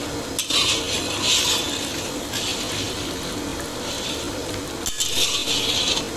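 Long metal spatula scraping and stirring wet milk curds in sugar syrup around a large iron karahi, in repeated scraping strokes about one a second.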